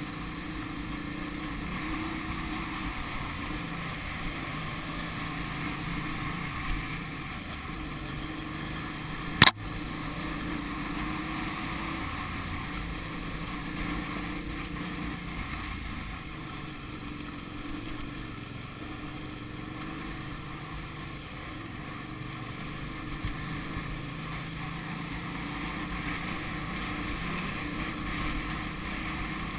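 Off-road motorcycle engine running steadily at low speed on a dirt track, with the hum of the bike ahead mixed in. A single sharp knock about nine and a half seconds in.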